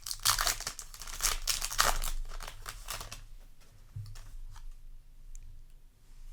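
Foil booster pack wrapper crinkling and tearing as it is opened by hand: a dense run of crackles for about three seconds, then quieter rustling.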